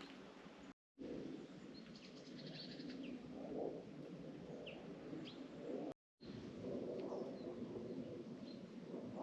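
A few faint, short, high bird chirps over a steady low background noise. The sound cuts out completely twice, briefly.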